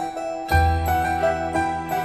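Background music: a melody of steady high notes over a low bass note that comes in about half a second in.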